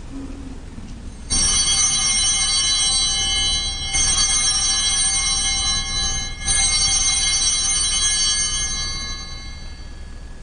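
Altar bells rung three times, about two and a half seconds apart, the first about a second in, each ring a cluster of high bell tones left to fade away. This is the ringing at the elevation of the chalice after the consecration.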